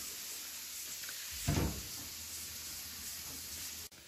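Steady background hiss with one soft bump about a second and a half in. Near the end it cuts off briefly with a click.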